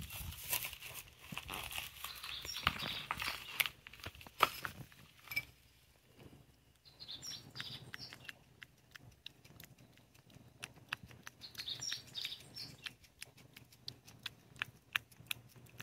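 A cat licking and lapping Churu lickable treat paste from a small dish: quick, wet tongue clicks, densest and most regular in the second half. Birds chirp briefly a few times in the background.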